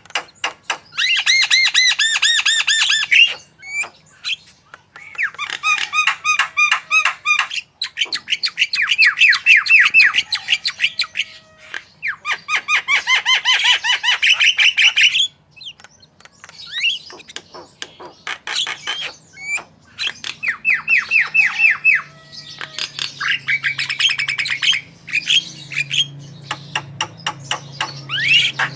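Javan myna singing vigorously: rapid, chattering series of repeated notes in bursts of two to four seconds with short pauses between, the song of a bird trained on other birds' phrases.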